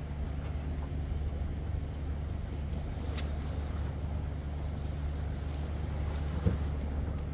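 Steady low engine hum that runs on without change, with wind on the microphone. A short knock about six and a half seconds in.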